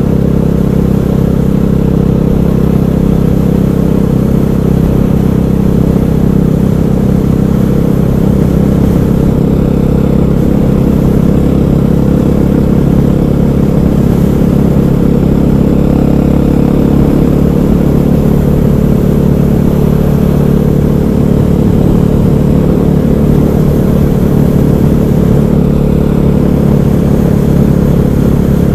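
KTM 500 EXC supermoto's single-cylinder four-stroke engine running steadily while the bike is ridden at an even pace, with no hard acceleration.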